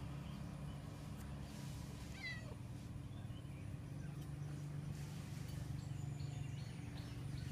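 Domestic tabby cat giving a short meow about two seconds in, over a steady low hum, while its lower back is scratched by hand.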